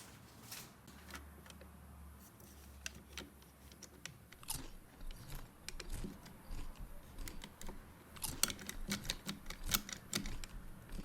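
Irregular light clicks and taps of small plastic toy pieces being handled, coming thicker and louder about eight seconds in.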